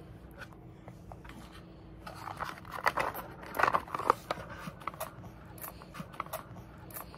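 Small cardboard box of Meiji Apollo strawberry chocolates handled and tipped to shake pieces out into a palm: a burst of rustling and clicking about two to four seconds in, then scattered small clicks.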